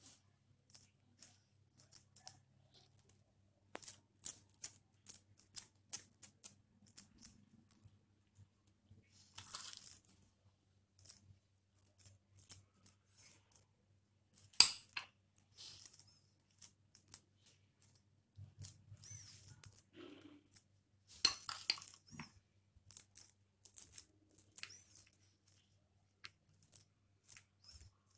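Metal spoon scraping and tapping against capsicum cups and a plate while spiced potato stuffing is pressed into halved green peppers: scattered light clicks and scrapes, with a sharper clink about halfway through and a few more a little later. A faint steady low hum sits underneath.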